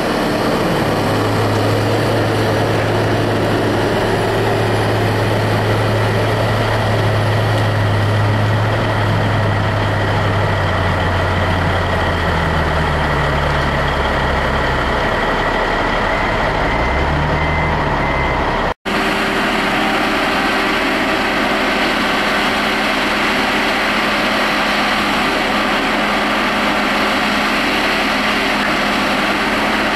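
Heavy diesel engine of a John Deere cable skidder running close by, its pitch falling and rising as the engine speed changes partway through. After a sudden break, the diesel engine of a Barko knuckleboom loader runs steadily.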